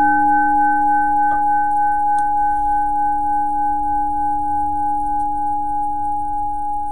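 Buddhist temple bowl bell (kin) ringing on after a single strike: a few steady, clear tones slowly fading with a slight waver. Two faint knocks come about a second and two seconds in.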